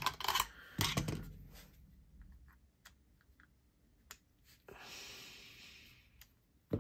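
Clicks and taps of a fixed-blade knife and screwdrivers being handled, then faint ticking as a screwdriver turns a screw holding the knife's G10 handle scale. A soft hiss about five seconds in and a sharp click at the end.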